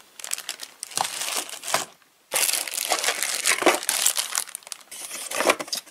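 Packaging crinkling and rustling as items are unpacked from a box, in irregular handfuls with a brief pause about two seconds in.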